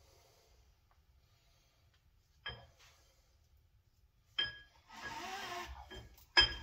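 Steel RCV axle shaft knocking against the cast-iron Dana 44 steering knuckle as it is pushed through: three sharp metallic clinks with a short ring, about two seconds apart, the last the loudest. Between the last two comes a scraping rub of about a second.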